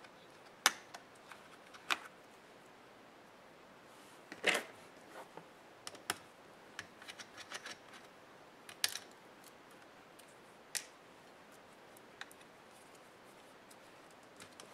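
Scattered sharp clicks and taps of laptop parts and small hand tools being handled during a laptop teardown. There are louder knocks just under a second in, about four and a half seconds in and about nine seconds in, and lighter ticks between them.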